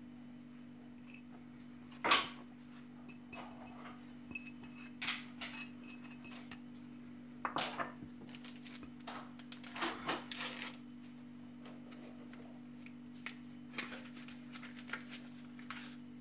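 Ceramic bowl and plate clinking and knocking while flour is tipped into the bowl and rubbed by hand into butter, sugar and egg yolks for sablé pastry dough. A sharp knock about two seconds in is the loudest; scattered lighter clinks follow in small clusters, over a steady low hum.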